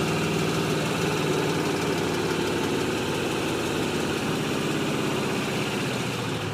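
2005 Pontiac GTO's LS2 6.0-litre V8 idling steadily, with a rapid, even ticking from the engine.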